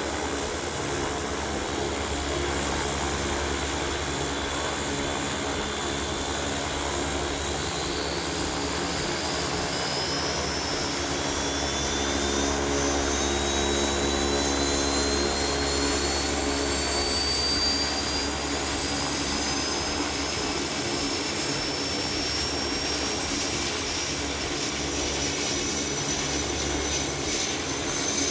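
GAF N22B Nomad's Allison 250 turboprop engines running steadily with a high turbine whine. From about a third of the way in, a second whine slowly rises in pitch.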